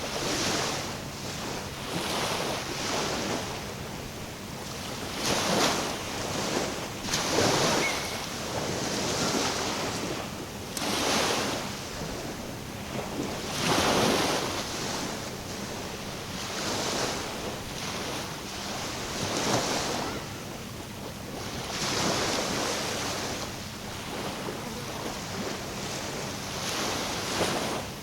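Small waves washing in at the water's edge, the sound swelling and falling every two to three seconds.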